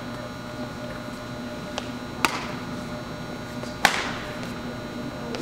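Badminton rally: sharp racquet strikes on a shuttlecock, a few in a row about two seconds apart, the loudest about four seconds in with a hall echo trailing after it, over a steady background hum.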